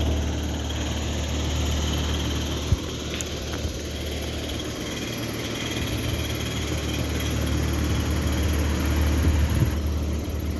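Carrier Sentry heat pump outdoor unit running with only its condenser fan, the compressor off. A steady low hum and fan whoosh, with one sharp click nearly three seconds in. The owner suspects the unit is low on refrigerant.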